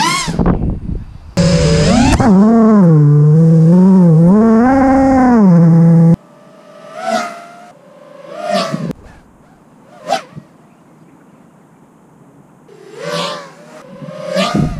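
FPV racing quadcopter's motors whining, the pitch rising and falling with the throttle: loud and close for a few seconds, then cut off suddenly. Later the quad passes several times, each pass a short swell of whine.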